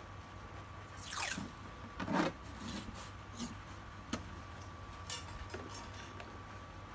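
Masking tape pulled off its roll with a short rip about a second in, then torn off. After that, hands press and smooth the strip onto a hard plastic tool case with light taps and rubs.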